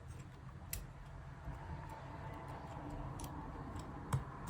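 A few sparse, sharp little clicks and taps from small repair tools and phone parts being handled on the opened iPhone 11, against a faint steady room hum.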